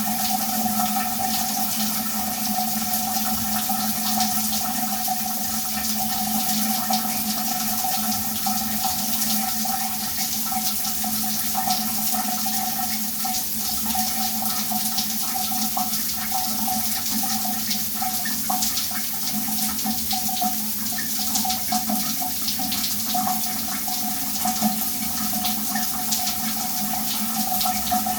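Shower running steadily, water spraying and splashing without a break, with a steady hum-like tone beneath the spray.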